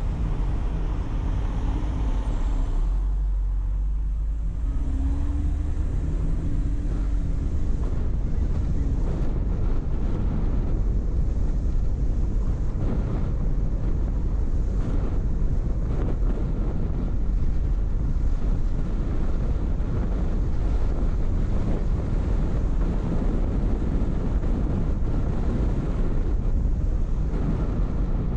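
A car driving: a steady low rumble of engine and road noise, with wind buffeting the microphone.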